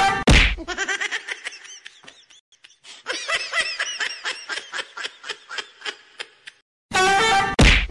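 Rapid snickering laughter in quick short bursts, several a second. It opens with a loud held tone cut off by a thud, and the same tone and thud come again near the end.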